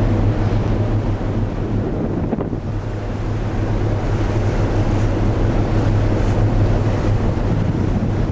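Wind buffeting the microphone over a steady low hum from the ship under way, with the rush of the sea.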